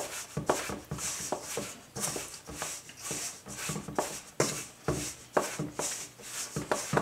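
Fingers stirring and crumbling dry, clumpy scone dough in a stainless steel bowl: repeated scratchy rubbing strokes with light clicks. The dough is still crumbly, with clumps being broken up and dry flour worked in.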